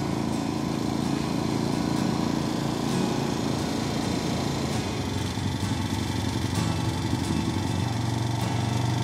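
Moto Guzzi SP motorcycle with sidecar under way, its air-cooled V-twin engine running steadily at an even speed.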